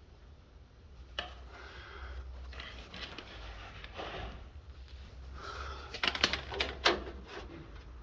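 Sharp metal clicks and knocks from the Camaro's hood latch being worked by hand: a single click about a second in, then a quick cluster of clicks and rattles around six to seven seconds in, over a low steady hum.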